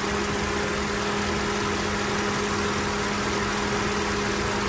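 Toyota Avanza 1.3-litre four-cylinder petrol engine idling steadily while warming up, heard from directly over the open engine bay, with a steady hum.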